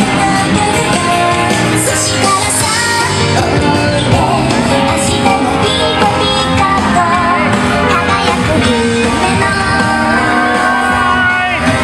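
Music with a singing voice, loud and continuous.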